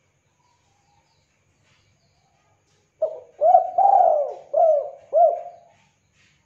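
Spotted dove cooing one song phrase of about five notes, starting about three seconds in. The third note is the longest and loudest.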